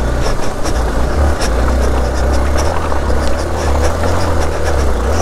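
Motorcycle engine running steadily on an off-road trail, with a heavy low rumble.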